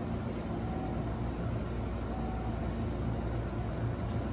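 Steady low hum of a Hankyu 1000-series electric train standing at the platform, its onboard equipment running while it waits to depart.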